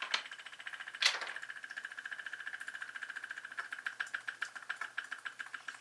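Benchtop magnetic stirrer running, a steady high whine with a fast, even ticking over it, as it spins a small beaker of clear coat. Two sharp clicks come about a second apart near the start.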